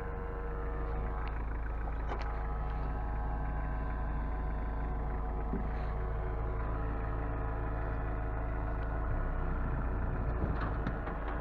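A motor vehicle's engine running steadily at an even speed, with heavy low rumble and a few light knocks.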